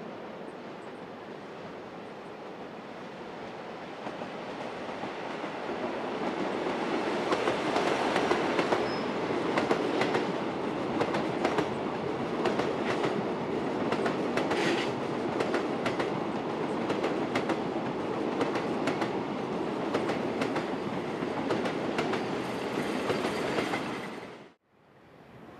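Freight train of mostly empty container flat wagons behind a DD51 diesel locomotive rolling past, the wheels clicking over the rail joints, growing louder from about four seconds in. The sound cuts off suddenly near the end.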